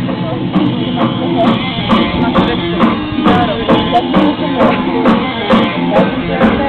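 Music with a steady drum beat, about two beats a second.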